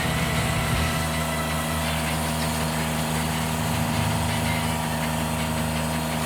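Engine of a portable band sawmill running steadily, a constant low hum without changes in speed.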